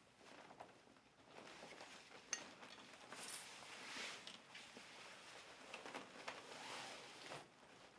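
Faint rustling of the patient isolation unit and its bag being handled as the unit is taken out, with one sharp click a little over two seconds in.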